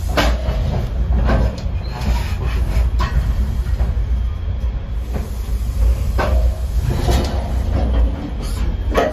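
Shoreliner II cab car rolling along the track, heard from inside the cab: a steady low rumble with occasional sharp knocks and clanks.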